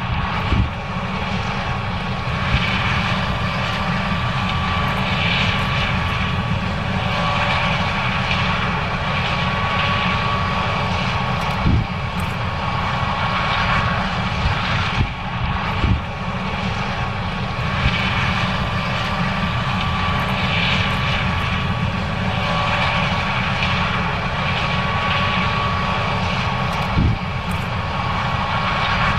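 John Deere 9610 combine running steadily while harvesting corn: an even engine and machinery drone with a thin high whine over it, and a few brief knocks.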